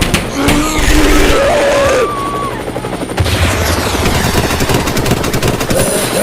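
Chaotic sound-effects track of rapid gunfire, used to get protection dogs used to loud noise. Wavering, wailing tones rise and fall over it, and a low rumble comes in about three seconds in.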